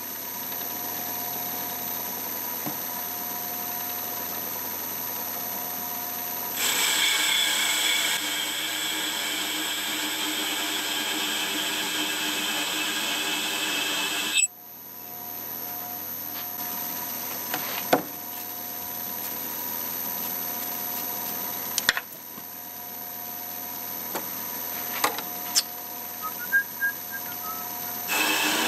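Boxford metal lathe running with a steady mechanical whine while turning a hardened steel bolt. For several seconds in the middle the cutting tool on the steel adds a louder hiss, which cuts off suddenly, and a few sharp clicks follow.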